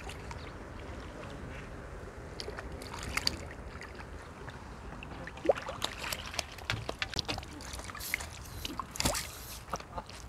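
A hooked crucian carp splashing at the water surface as it is played in and netted: irregular splashes and sloshes, the strongest about five and nine seconds in.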